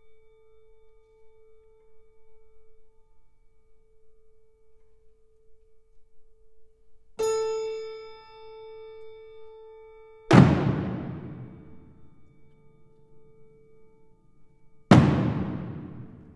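Slow instrumental music: a ringing bell-like tone fading away, struck again about seven seconds in, then two deep drum hits, timpani-like, about three and eight seconds later, each dying away slowly.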